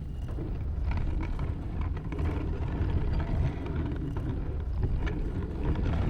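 A loud, steady low rumble with faint scattered crackles.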